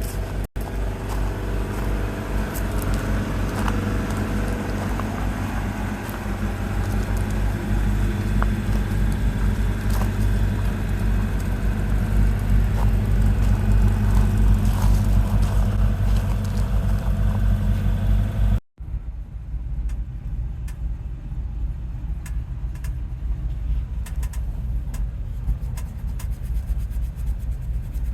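Squarebody pickup truck's engine running steadily, its low rumble strongest in the first two-thirds. A cut about two-thirds of the way through leads to a second take of the same running, less bright.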